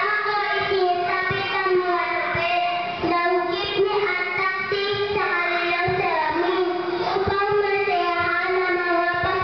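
A young girl singing solo into a handheld microphone, a slow melody of long held notes.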